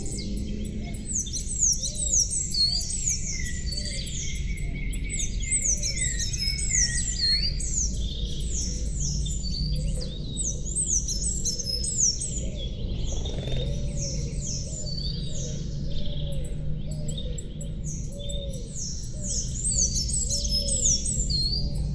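Many small songbirds chirping together in quick series of short falling notes, with a soft, steady musical drone underneath.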